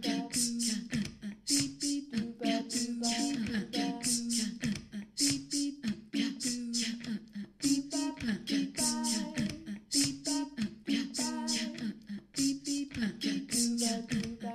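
Background music: a song with a voice over a steady, crisp percussive beat.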